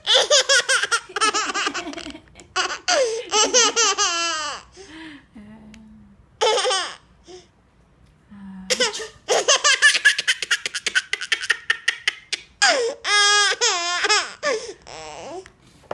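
A nine-month-old baby girl laughing hard in several long fits, each a quick run of high-pitched laughs that slides down in pitch, with short pauses between fits.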